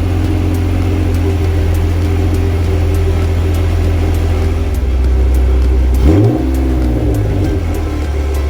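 Honda NSX V6 engine idling steadily, then blipped once about six seconds in, the revs rising and dropping back to idle.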